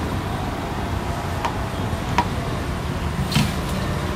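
Batata vadas deep-frying in oil in a large iron wok, over a steady low rumble, with three sharp clinks of a metal slotted skimmer against the pan.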